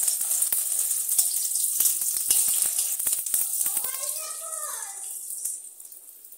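Crushed garlic and a dried red chilli sizzling in hot mustard oil in a steel wok, with a spatula clicking and scraping against the pan as it stirs. The sizzle eases off in the last couple of seconds.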